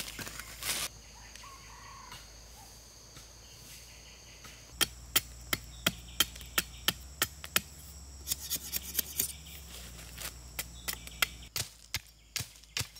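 Machete blade chopping into a green bamboo pole: sharp strokes about two to three a second, starting about five seconds in. A scuff of kicked soil sounds just before, and insects drone faintly and steadily behind.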